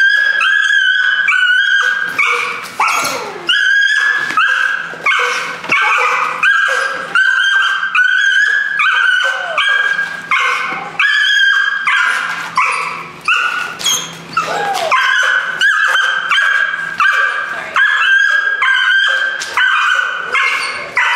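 Dutch shepherd puppy barking in a steady run of high-pitched yips, about two a second, with a couple of falling whines among them. This is excited, frustrated barking while held back on the leash from a bite pillow during bite-work drive training.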